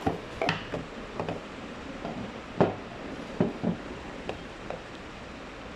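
A ceramic mug being taken out of its cardboard box and handled: scattered light knocks and clicks of the mug and packaging, the loudest about two and a half seconds in, with a few more in the second after.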